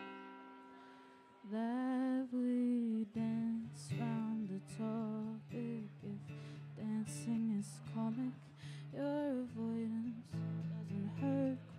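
A woman singing live with vibrato over her own acoustic guitar. A guitar chord rings out and fades at the start, then the voice comes in about a second and a half in, holding long notes over the guitar.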